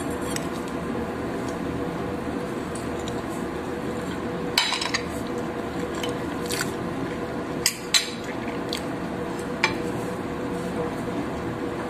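A fork clinking against a ceramic plate several times while pancakes are cut and eaten, with soft chewing sounds, over a steady background hum.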